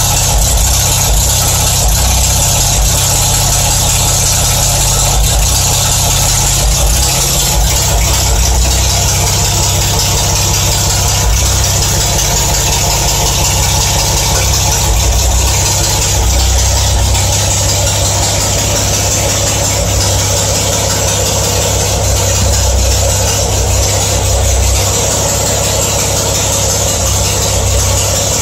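Restored 1960 Jensen 541R's Austin four-litre straight-six engine running steadily at idle.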